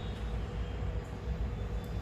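A steady low background hum, with a faint even tone running through it and no distinct knocks or clinks.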